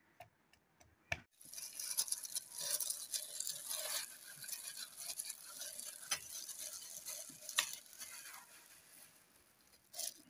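Wooden pestle crushing and grinding green chillies, garlic and ginger into a wet paste in a wooden mortar: a steady scraping, squishing sound with scattered sharp knocks. It starts about a second and a half in and dies away near the end.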